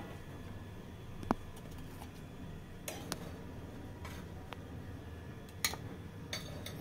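Metal serving tongs clinking against a plate several times as egg puffs are set down on it, the loudest clink, about a second in, ringing briefly. A low steady hum runs underneath.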